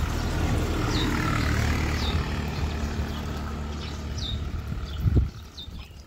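Water poured from a pot into a bird-water basin, splashing with a low rumble that fades near the end, and a thump about five seconds in. A bird repeats a short high falling call about once a second.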